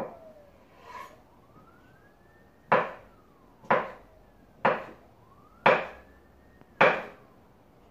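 Kitchen knife cutting boiled potato on a wooden cutting board, the blade knocking the board about once a second: two light knocks, then five sharp ones. Behind them a faint siren slowly rises and falls in pitch.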